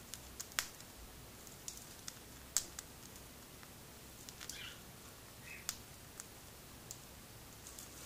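Cockatiel husking millet seeds off a millet spray with its beak: sharp, irregular clicks, roughly one or two a second.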